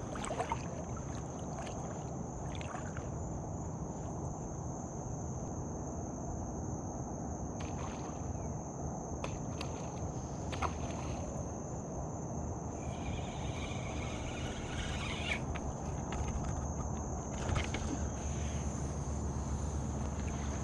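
Open-water ambience from a kayak: a steady low rumble of wind and water under a constant high-pitched insect drone, with scattered light clicks and knocks from fishing tackle being handled.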